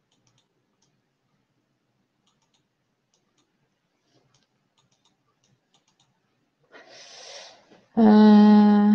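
Faint scattered clicks, then near the end a breath and a woman's voice holding one steady vowel-like sound for about a second.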